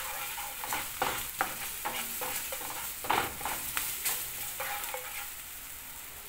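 Chopped green onions sizzling in hot oil in a frying pan while a wooden spoon stirs and scrapes them around. A steady hiss runs under irregular scraping strokes.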